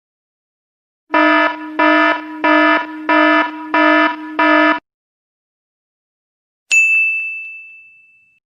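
An electronic alarm buzzer beeping six times in a steady pulse, about one and a half beeps a second, followed after a short gap by a single bright bell ding that rings out and fades.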